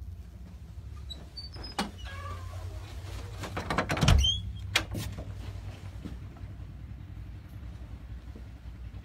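Steady low hum with scattered sharp clicks, and a burst of rubbing and knocking about four seconds in, the loudest moment, with a short high squeak at its end.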